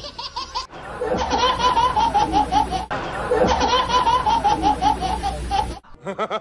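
A baby laughing hard in two long fits of quick, repeated high-pitched bursts, split by a short break; near the end a different short burst of laughter cuts in.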